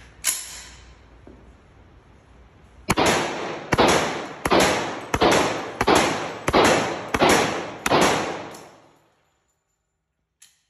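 JR Carbine firing .45 ACP rounds: a string of about eight shots, roughly 0.7 s apart, each echoing in the indoor range. A single sharp knock comes a third of a second in, before the shooting, and a faint click near the end.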